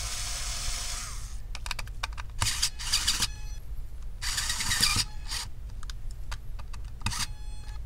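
Electric screwdriver whirring as it backs out small laptop case screws. One long run ends about a second in, then three shorter bursts follow.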